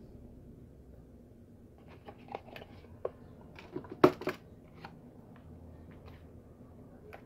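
Packaging being handled: a run of small clicks, taps and rustles, the loudest a sharp click about four seconds in.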